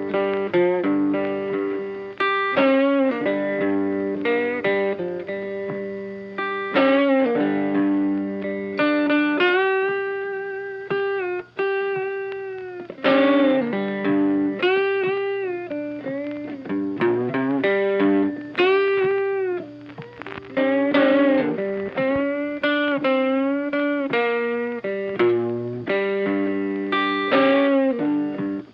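Funky background music led by an electric guitar playing plucked phrases with frequent bent notes over a sustained chord, briefly dropping out about twelve seconds in.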